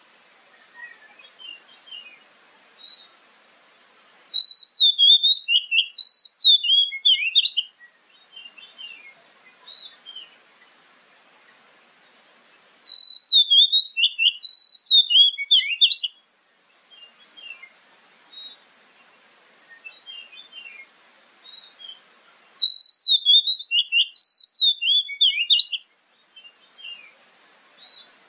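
Oriental magpie-robin singing: three loud, fast phrases of high notes that sweep down and up, the same phrase each time, each about three seconds long and about nine seconds apart. Softer scattered chirps and a faint hiss fill the gaps.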